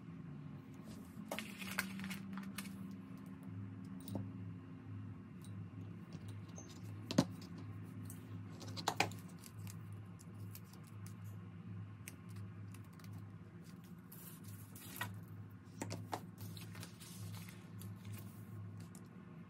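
Scattered light clicks and taps of hands handling small paper image cut-outs, a small glass bowl and a sheet of printed images, the sharpest two about seven and nine seconds in. Underneath runs a faint low hum that pulses steadily.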